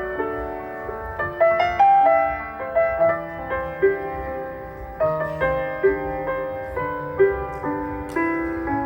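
Piano playing the instrumental intro of a song: chords with a melody line on top, each note struck and left to ring.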